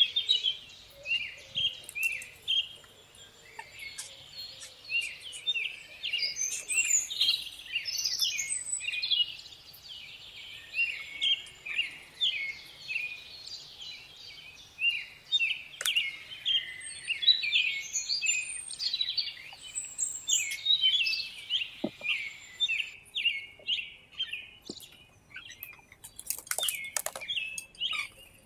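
Small birds chirping, many quick short calls overlapping almost without pause, with a few sharp clicks near the end.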